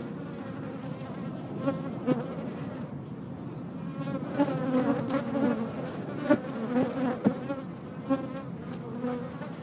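Many bees buzzing close by: a dense drone of overlapping wingbeat tones that swells and fades, with a few sharp ticks.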